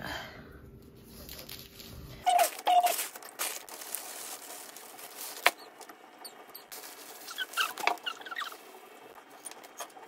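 Hands repotting plants: potting soil and small pots handled on newspaper, giving scattered light taps and rustling, with a few short squeaks about two and a half seconds in and again near the end.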